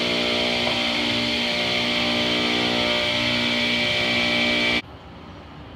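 Table saw running steadily with a constant, many-toned hum, cutting off suddenly near the end.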